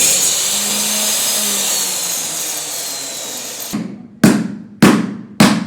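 Handheld power tool cutting the recess for a flush sliding-door handle into a wooden wardrobe door, running steady and high-pitched, then winding down and stopping a little before four seconds in. Three sharp blows follow near the end, about half a second apart.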